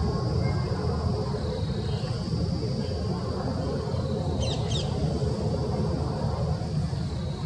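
Qatar Airways Boeing 787 jet engines as a low, steady rumble from the airliner climbing away overhead, slowly getting quieter. A steady high-pitched hum runs behind it, and a bird gives a brief chirp about halfway through.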